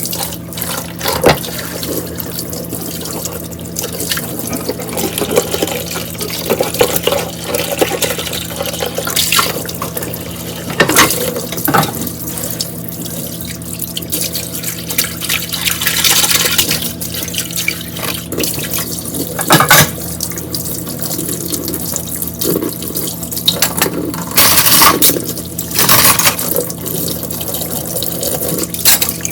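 Kitchen tap running into a sink while dishes are washed and rinsed, with irregular louder splashes and knocks every few seconds.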